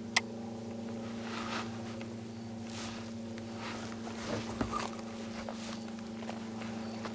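A steady machine hum with a low pitched drone, a sharp click just after the start, and soft rustling and handling noises.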